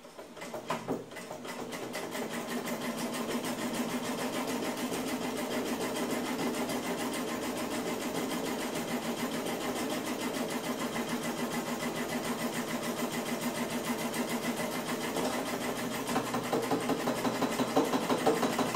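Old hand-operated Singer sewing machine, converted to run from a 12 V 775 DC motor and belt, stitching cloth: a motor whirr with the needle mechanism's fast, even clatter. It picks up speed over the first couple of seconds, runs steadily, and gets louder and more uneven in the last few seconds.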